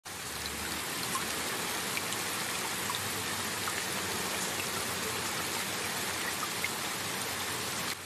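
Steady rain: an even hiss with scattered small drop ticks.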